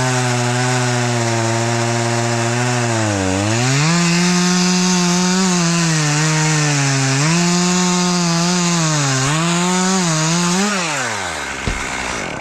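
Gas chainsaw running at full throttle and cutting through wood, its engine pitch dipping several times as the chain bogs in the cut. Near the end the engine winds down and falls quiet.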